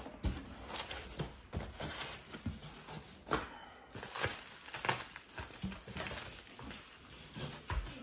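Packing being handled inside a cardboard box: foam sheets and bubble wrap rustle and crinkle in short, irregular bursts, with a few soft knocks.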